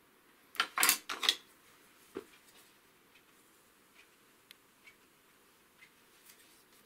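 A quick cluster of clinks and knocks about a second in, hard tools or pottery being handled at a potter's wheel, with one more knock shortly after and then faint scattered ticks.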